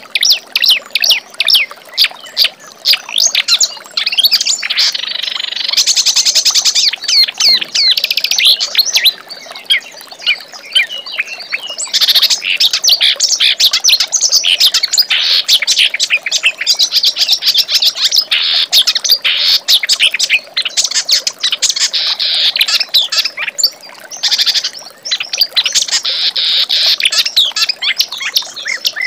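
Kerak basi (reed warbler) singing a fast, continuous, chattering song of rapid chirps and trills with barely a pause.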